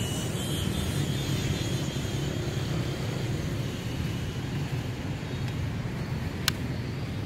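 Steady low drone of distant engine noise. A faint high whine from the toy helicopter's small electric motors fades out within the first second, and there is a single sharp click about six and a half seconds in.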